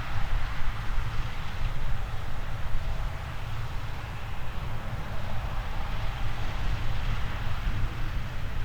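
Harvest machinery running steadily in a grain field, with wind buffeting the microphone.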